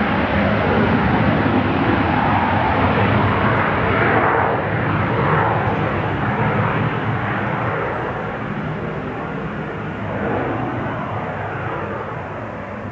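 Bombardier Challenger 300's twin Honeywell AS907 turbofans at takeoff thrust as the jet accelerates down the runway, a loud rushing jet noise. The tone sweeps and shifts around four to six seconds in, then the sound fades steadily as the jet moves away.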